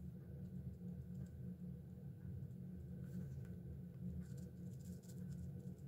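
Faint scratching and light tapping of a marker nib colouring on foil paper, over a steady low hum.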